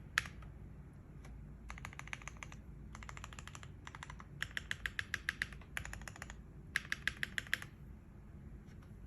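Keychron Q1 mechanical keyboard with stock Gateron Phantom Silver switches, an aluminium plate, tape and force-break mods and ABS doubleshot keycaps, typed on in quick runs of keystrokes with short pauses between them. The typing stops near the end.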